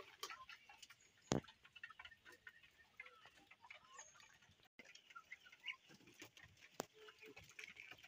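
Faint clucking of chickens, with a soft knock about a second in.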